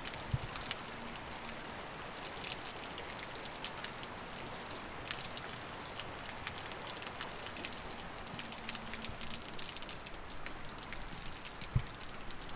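Wet, heavy snowfall pattering steadily with irregular small ticks of flakes and meltwater drips landing, like light rain. Two low thumps stand out, one just after the start and one near the end.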